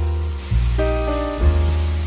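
Background music: sustained chords over a deep bass note, changing about every half second to a second.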